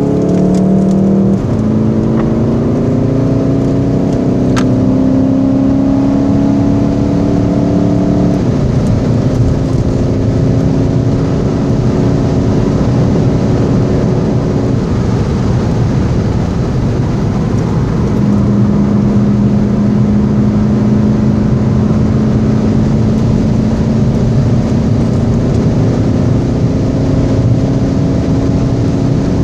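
Volkswagen Golf 7 GTD's 2.0-litre turbodiesel four-cylinder heard from inside the cabin, pulling hard under acceleration with its note climbing, then dropping once about eight seconds in as it shifts up, over steady tyre and wind noise.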